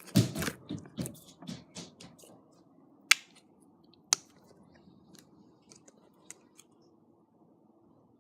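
Sticky homemade slime being worked by hand in a container: a quick run of wet clicks and crackles, then two sharp clicks about three and four seconds in and a few faint ticks.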